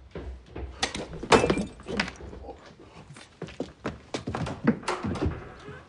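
A flurry of thuds, knocks and clatters from a man scrambling through a room crowded with figurine-covered tables and pushing through curtains. The loudest knock comes about a second and a half in, with another cluster about five seconds in.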